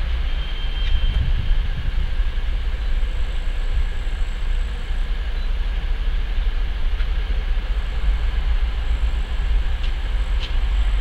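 Voith Maxima 40 CC diesel-hydraulic locomotive's engine running under power as it approaches slowly. It gives a steady deep rumble with a faint high turbocharger whistle over it.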